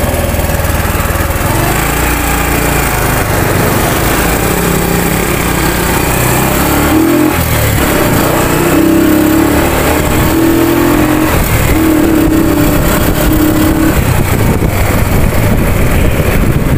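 Motorcycle riding at road speed, its engine running under a heavy roar of wind across the microphone. In the middle a low, steady-pitched note comes and goes five times, each about a second long.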